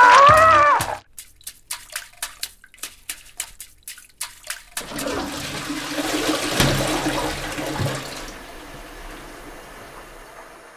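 A shout cuts off about a second in, followed by a run of short, sharp strokes, about three or four a second, for some four seconds. Then a toilet flushes: the rush of water swells and fades slowly as the bowl settles.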